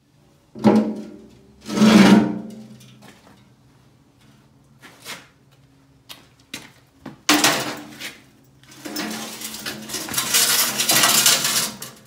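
Heavy steel skid steer bucket clanking against a steel welding table: two ringing metal clangs early on, smaller knocks, a sharp clang about seven seconds in, then a long grinding scrape as the bucket is slid across the table top.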